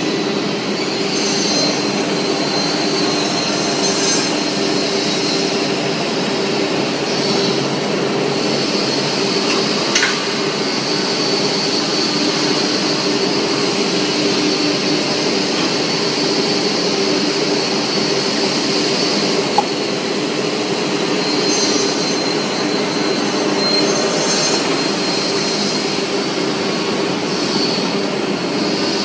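Semi-automatic panel saw (beam saw) running with a steady machine hum. A higher hiss swells and fades in stretches of several seconds, and there is a sharp click about ten seconds in.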